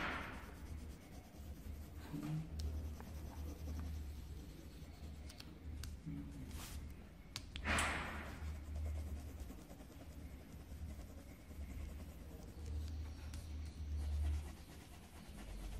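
Coloured pencil shading on a sheet of paper: faint, soft scratching strokes, with a few light ticks.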